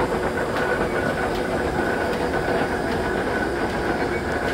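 Large antique J. J. McCabe lathe running steadily: a dense mechanical noise from its drive and gearing, with a steady high whine running through it.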